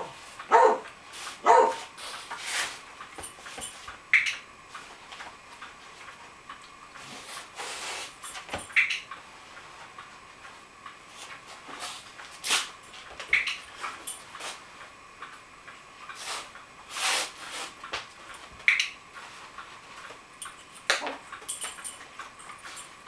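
A dog barks twice near the start, then gives brief high-pitched whines every few seconds, with a few sharp clicks in between.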